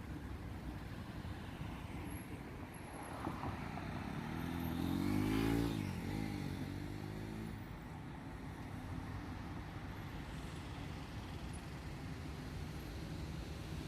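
Steady road-traffic rumble, with one vehicle engine passing close about five seconds in. Its pitch climbs, then drops sharply as it goes by.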